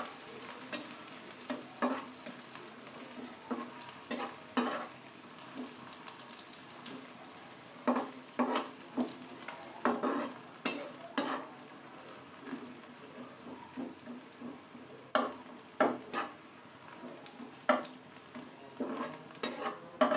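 Sliced onions sizzling in hot oil in a kadai, with a spatula scraping and knocking against the pan at irregular intervals as they are stirred.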